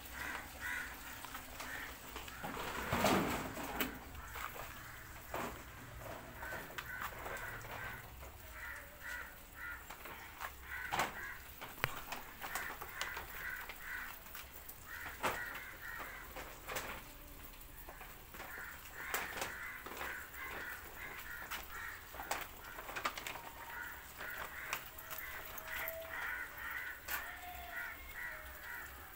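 Birds calling over and over in short repeated notes, with scattered clicks and a brief louder rustle about three seconds in.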